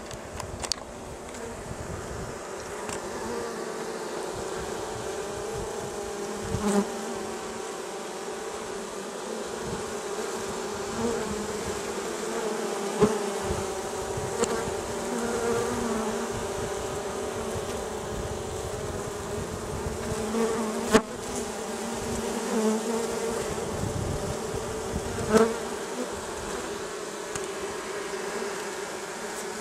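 Many honeybees buzzing around a cut-open tree hive, a steady drone that wavers in pitch and level. A few short knocks stand out over it, the loudest about halfway through and near the end.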